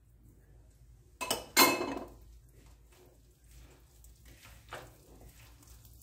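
A wooden spoon knocks twice as it is put down by the ceramic mixing bowl, the second knock louder with a brief ring. Faint rustling follows as hands work the crumbly sellou mixture in the bowl.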